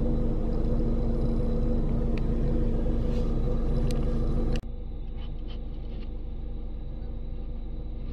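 Steady low hum of a stopped car idling. About four and a half seconds in it cuts abruptly to a quieter hum with a few faint soft clicks.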